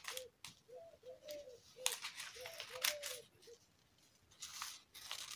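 Scissors cutting along the fold of a folded sheet of A4 paper: a run of crisp snips, a short pause, then two more snips near the end.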